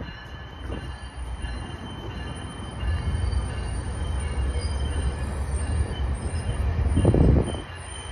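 GO Transit bilevel passenger coaches rolling past: a steady low rumble of wheels on rail with thin, steady squealing tones from the wheels. A louder rumble swells about seven seconds in.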